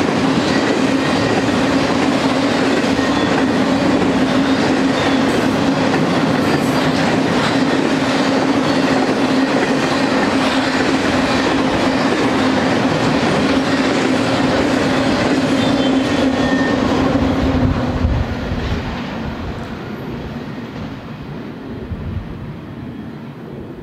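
Freight cars of a BNSF intermodal train, loaded with containers and truck trailers, rolling past on the rails: a steady loud rumble of wheels on track with a held humming tone. About eighteen seconds in the last car goes by and the sound drops away as the train recedes.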